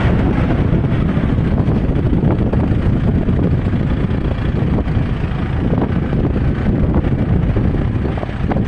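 Wind buffeting the microphone heavily, with a Massey Ferguson tractor working the field heard under it.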